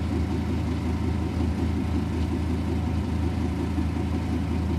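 A motor engine idling steadily: a low, even drone.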